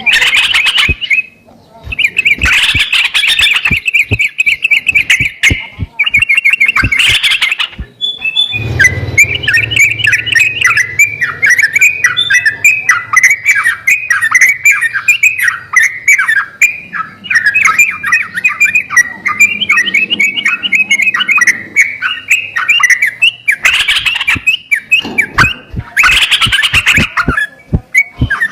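Yellow-vented bulbul (trucukan) song: quick series of bright chirping notes in short bursts. A longer unbroken run of song starts about nine seconds in, with a low steady hum beneath it that stops a little after twenty seconds.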